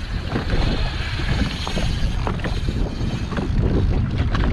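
Wind buffeting the microphone: a steady, heavy rumble with scattered small clicks and splashes on open water.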